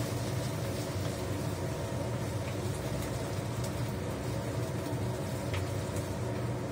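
A steady low kitchen hum and hiss, with faint scrapes and taps of a spatula stirring sauce and bell peppers in a frying pan on the stove.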